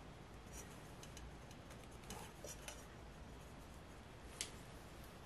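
Faint clicks and scrapes of hand crimping pliers squeezing a blue insulated crimp connector onto wires, with a sharper click about four seconds in.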